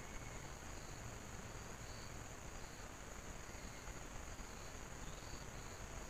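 Insects calling in a steady high-pitched chorus, with another insect's short repeated chirps below it, over a steady hiss.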